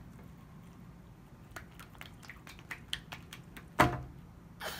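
Stiff pink putty-type slime being stretched and pressed by hand on a glass tabletop while being worked to try to form a bubble, giving a run of small crackling clicks, then one louder squelch about four seconds in.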